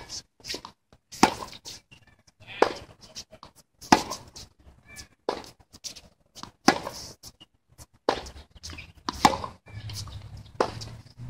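Tennis balls struck back and forth on a hard court: sharp racket hits and ball bounces, a single crack about every second and a half.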